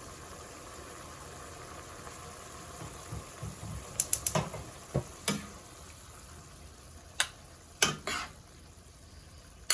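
Pan of sautéed vegetables and pork sizzling steadily, with a handful of sharp clinks and scrapes of a utensil against the pan from about four seconds in as the food is served out. The sizzle eases off in the second half.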